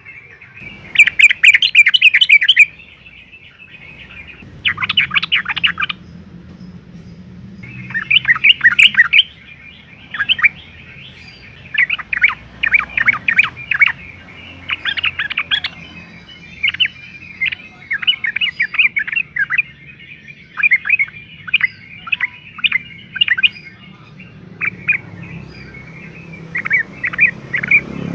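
Yellow-vented bulbul singing in full voice: bursts of rapid, bubbly chattering notes. There are three loud bouts in the first nine seconds, then a near-continuous string of shorter phrases.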